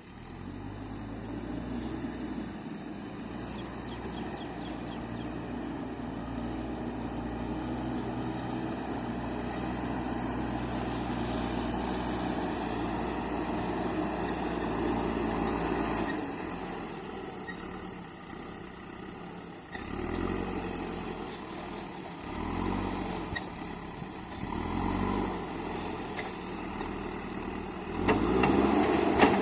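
JCB 3DX backhoe loader's diesel engine running steadily, then, from a little past halfway, rising and falling in repeated surges every few seconds, loudest near the end.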